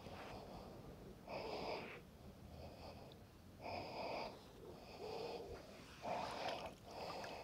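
A magnet-fishing rope being hauled in hand over hand through gloved hands: a short rasp about once a second, six times.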